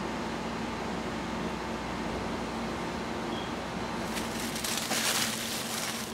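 Steady background hum and noise, then from about four seconds in, tissue paper rustling and crinkling as hands handle it.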